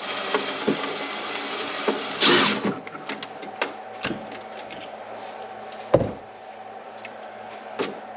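Hands handling small plastic parts on a workbench: scattered clicks and taps, a loud rustling scrape about two seconds in, and a single sharp knock about six seconds in.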